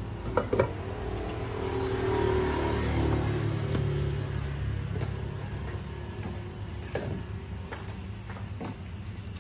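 A motor vehicle's engine passes close by over a steady low rumble, swelling to its loudest two or three seconds in and then fading. Now and then a metal spatula clicks sharply against the wok.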